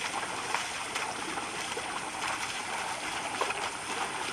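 Oxen hooves and a wooden plough churning through flooded paddy mud: a steady sloshing of water and mud with small splashes.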